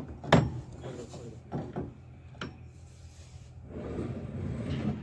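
Metal knocks and clinks of hand tools and loose parts on a combine harvester's steel frame and rod grid: a sharp knock just after the start, two lighter clicks, then a scraping rub building up near the end.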